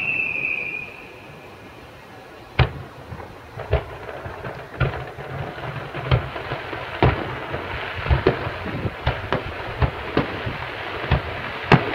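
Fireworks display: a whistling firework glides down in pitch and fades in the first second. Then comes a run of sharp bangs from bursting shells, irregular and more frequent toward the end, over a steady hiss of wind on the microphone.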